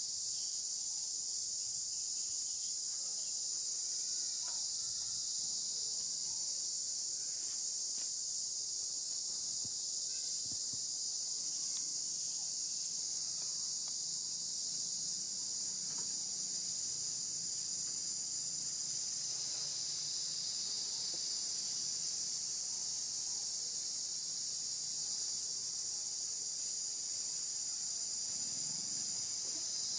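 Insect chorus in the forest: a continuous, even, high-pitched shrill drone.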